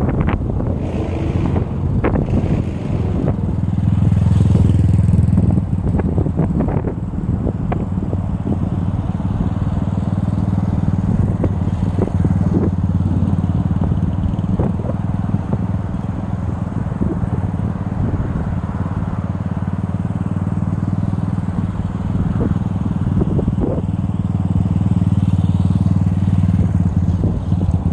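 Motorcycle engine running steadily while riding, with wind buffeting the microphone. The engine note swells a little a few seconds in and again near the end.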